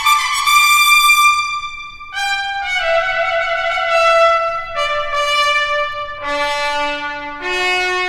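Trumpet playing a slow phrase of long held notes, each sustained a second or two, stepping down from high notes to low ones about six seconds in and rising again near the end.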